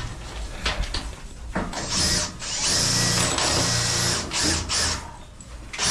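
Electric power drill running in bursts: a short run about two seconds in, a longer run of about a second and a half, then a few quick blips near the end, after a few knocks.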